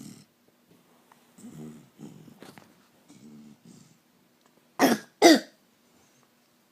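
Snoring of a sleeper who is sick: a few short, soft snores, then two loud coughs about half a second apart, some five seconds in.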